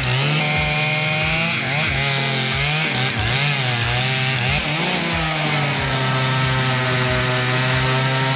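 High-powered chainsaw cutting into a large pine tree, its engine running at high revs under load. The pitch dips and recovers several times in the first few seconds, then holds steadier as the cut goes on.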